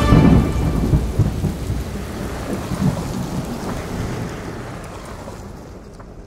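Thunder rolling over steady rain, loudest at the start and slowly fading away.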